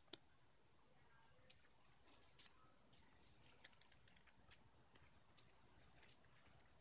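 Easter Egger hens pecking black oil sunflower seeds off the ground: quick faint clicks of beaks on seeds and soil, in bursts about two and a half and four seconds in.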